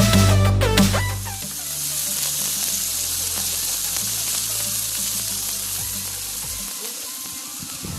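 Food sizzling as it fries or grills, a steady hiss, over background music that drops from a loud electronic beat to a quieter bed about a second in.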